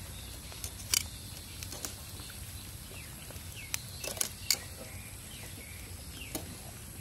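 Metal tongs clicking and scraping against a wire grill rack as grilled eels are turned, a handful of sharp separate clicks, the loudest about a second in and twice more around four to four and a half seconds.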